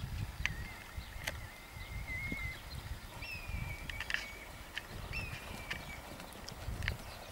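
Hoofbeats of a German Sport Horse moving over sand arena footing: dull, muffled thuds in a running rhythm, with birds chirping in the background.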